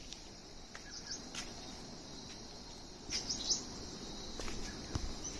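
Steady, faint high-pitched insect chorus, with a few short bird chirps about a second in and again around three seconds in, and a single knock near the end.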